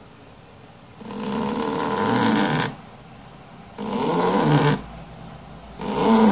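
Snoring: rough, noisy breaths repeating about every two seconds, three in all.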